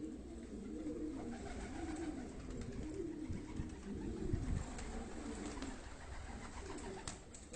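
Domestic pigeons cooing, several low, curving coos repeating and overlapping, with a short click near the end.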